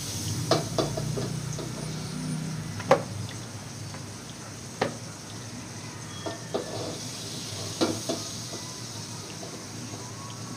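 Pancake sizzling in a frying pan, with a utensil clicking and scraping against the pan several times.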